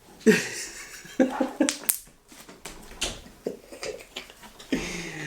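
Slime giving off several short, irregular squelches and fart-like pops as a racket is pressed into it and pulled away.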